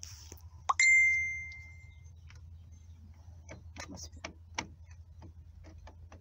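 A single electronic warning beep from a narrowboat's engine control panel as the ignition key is turned: a click, then a clear high tone that fades away over about a second. A few light clicks from the key switch follow.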